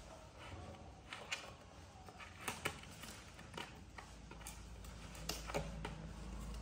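Light scattered clicks and taps, with faint paper rustling, from small hands handling a plastic piggy bank and folded paper banknotes. A low hum comes up about four seconds in.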